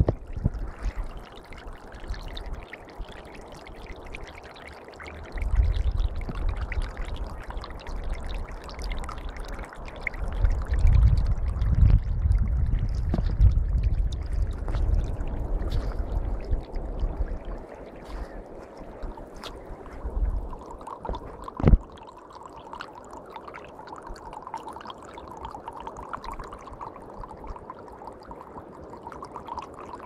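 Spring meltwater stream running and gurgling over ice and slush, with stretches of low rumble on the microphone, a single click about two-thirds of the way in, and a steadier gurgle near the end.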